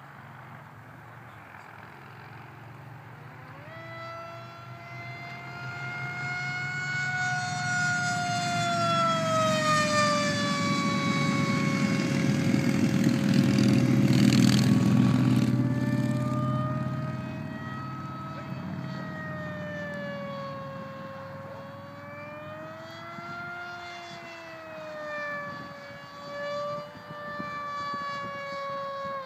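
HobbyKing Darkwing RC plane's electric motor and propeller whining in flight. The whine starts a few seconds in, slides up and down in pitch with throttle and passes, and is loudest when the plane passes close, about halfway through.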